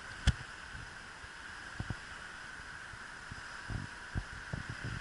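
Steady rushing hiss of a swollen, flooded river after a typhoon, with a sharp click about a third of a second in and a few soft low knocks toward the end.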